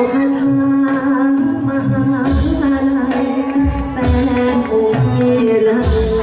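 Live Thai likay stage music: a long held, wavering melody note over a percussion ensemble, with three deep drum strokes about a second and a half apart.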